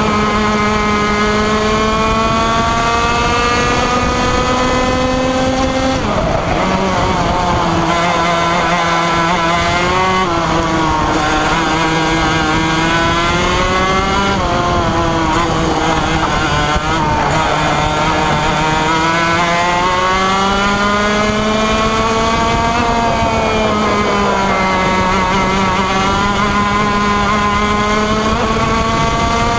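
Onboard sound of a 125cc two-stroke TaG racing kart engine at high revs. Its pitch climbs along the straights and drops sharply several times as the driver lifts off and brakes for corners.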